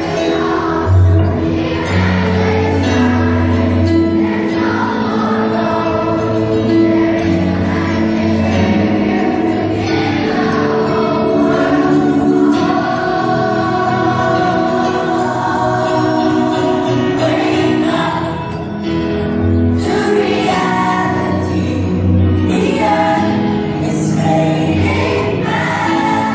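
A group of primary-school children singing together as a choir over a musical accompaniment with a pulsing bass.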